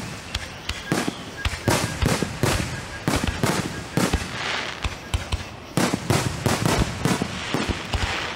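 Aerial fireworks bursting: many sharp bangs in quick, irregular succession, some overlapping, with crackling hiss between them.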